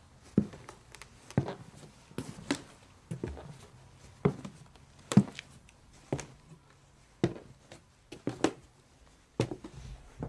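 Shoes walking at an unhurried pace across a hollow wooden stage floor, each step a distinct knock with a short ring in the room, about one a second, now and then two in quick succession.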